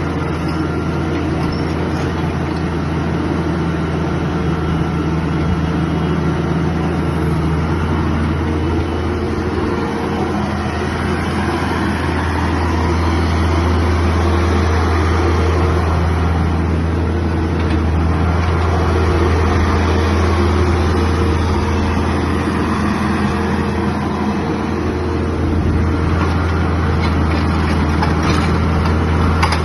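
Diesel engine of a Kubota mini excavator running steadily, its pitch and loudness rising and easing a little partway through as the load changes.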